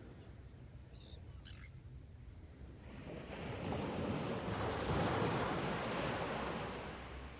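A sea wave washing onto the shore, swelling over a couple of seconds and dying away again. A few short bird calls sound faintly just before it.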